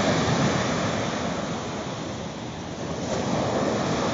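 Mediterranean surf breaking and washing up a sandy beach: a steady rush of water that swells at the start and again about three seconds in as waves come ashore.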